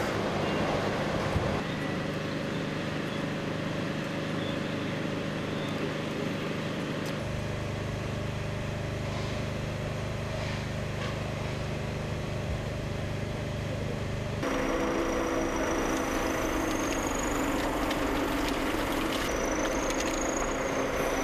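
Steady outdoor background noise with a low mechanical hum like distant engines, changing abruptly about a third and two-thirds of the way through. In the last part a faint high whine slowly rises and falls.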